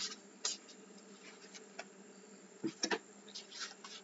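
Tarot cards being handled and drawn from the deck: a few short card flicks and swishes, a cluster of them near the end, over a faint steady low hum.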